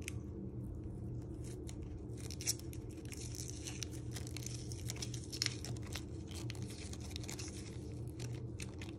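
Papery outer skin of a shallot crackling and tearing as fingers peel it away, in scattered small crackles over a steady low hum.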